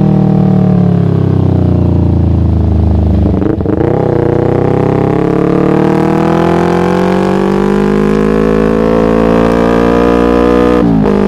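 Yamaha MT-25's 250 cc parallel-twin engine through a Shadux racing exhaust. It is loud throughout. Its pitch falls for about three seconds as it slows, then climbs steadily under acceleration for about seven seconds, and drops sharply near the end, as at an upshift.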